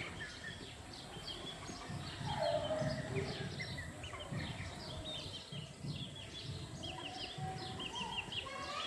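Chickens calling, with many short high chirps throughout and a longer, lower hen call about two and a half seconds in, over a low rumble of handling noise.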